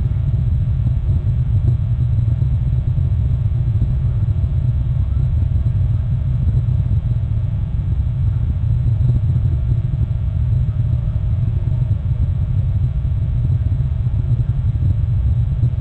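Steady low rumble of wind buffeting an outdoor nest-cam microphone.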